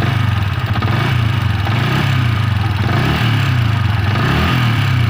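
Yamaha Vixion single-cylinder four-stroke engine idling with a ticking rattle, which the mechanic takes for piston noise. Its speed wavers slightly, with small rises near the end.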